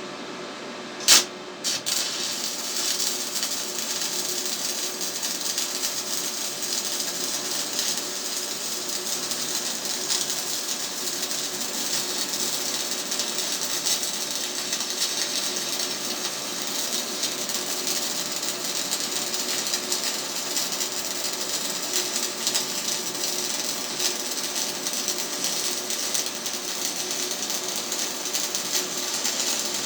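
Stick (MMA) welding arc from a 2.5 mm Hilco Red Extra electrode, struck with a sharp crack about a second in, then burning with a steady crackling sizzle as it runs a bead on old, wet, rusty, painted steel.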